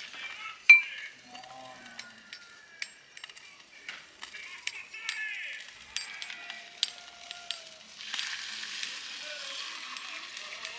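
Pork ribs sizzling on a charcoal kettle grill while a basting brush clicks and taps against the metal grate, the loudest click about a second in. The sizzling grows louder and steadier about eight seconds in.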